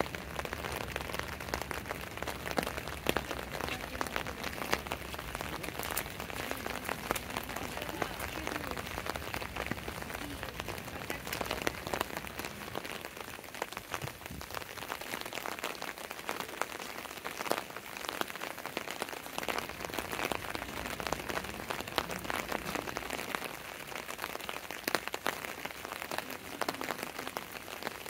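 Steady rain falling, with many separate drops hitting close by.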